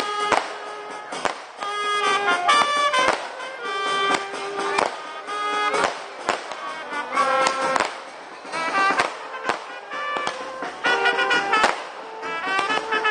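Fireworks going off overhead in repeated sharp bangs and crackles at irregular intervals, over music playing a melody.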